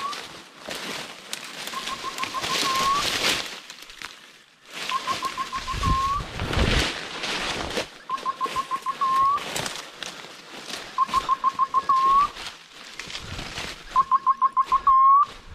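A run of rapid, high pips at one pitch, each run ending in a short upward-hooked note, repeating every two to three seconds and loudest near the end. Under it is rustling and crunching through dry leaves and brush.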